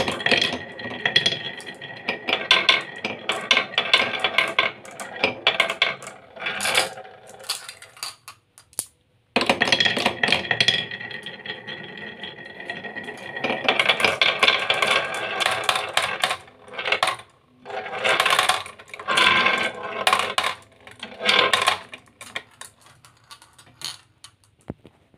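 Glass marbles rolling and clattering down zigzag wooden HABA marble-run slopes, clicking against one another and dropping into a plastic toy dump truck's bed. The rattle is dense, breaks off briefly about nine seconds in, then thins out near the end as the last marbles settle in the truck.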